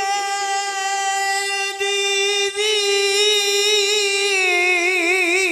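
A man singing a Punjabi naat unaccompanied, holding one long high note steady for about four seconds, then breaking into a wavering, ornamented run near the end.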